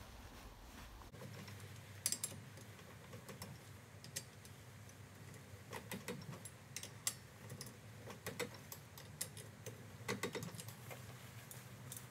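Hand socket ratchet clicking in short, irregular runs while the nuts holding a wheel spacer to an ATV front hub are tightened, with a few light metallic clinks.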